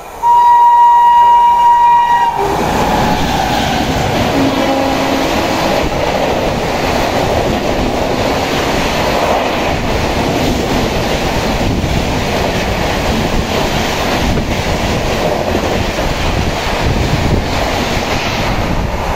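Locomotive horn sounding one steady blast, then the 12301 Howrah–New Delhi Rajdhani Express running through at about 132 km/h close by: a loud, even rush of passing coaches with wheels clattering on the rails.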